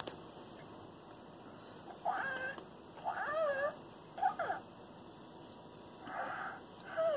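Hatchimal electronic toy calling from inside its unhatched egg: a series of about five short, warbling, mew-like chirps, the first about two seconds in.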